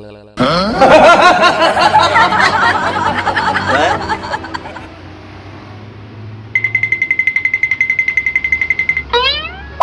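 Overlapping laughter for a few seconds, then a rapid high-pitched beeping of about ten beeps a second for two and a half seconds, then quick rising whistle-like glides near the end.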